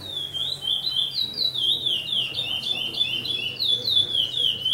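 Songbird singing a long, unbroken run of quick, sharp down-slurred notes, several a second.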